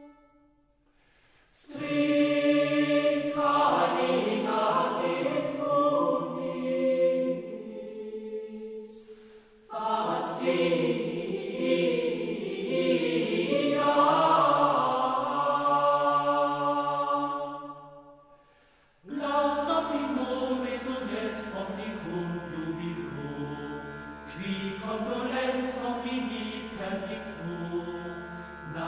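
Background music of a choir singing chant-like lines. It drops out briefly near the start and again about two-thirds through, after which a low steady drone sits under the voices.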